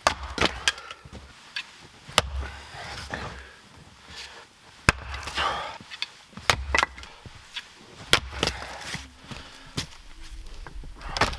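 Axe splitting cold, dry maple firewood: about a dozen sharp chops and knocks at irregular intervals, with splitting and rustling between strokes.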